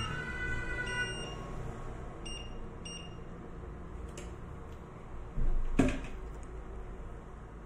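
Wooden spoon stirring a simmering pot of dried-fruit compote, with one loud knock about six seconds in. Two short high beeps come a little after two and three seconds in.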